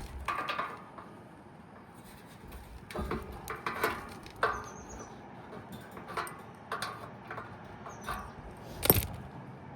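Scattered metal clinks and knocks of hand tools at a condenser fan blade hub and shaft, the loudest knock near the end. Two faint short high chirps sound in the middle.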